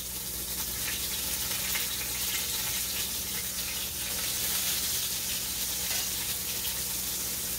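Flour-dredged cube steaks frying in hot oil in a skillet, a steady sizzle, with a low steady hum underneath.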